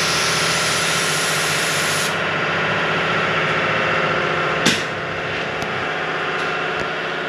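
Loud steady hiss of a body-shop air or power tool at work, its top end dropping away about two seconds in, with one sharp click a little past the middle.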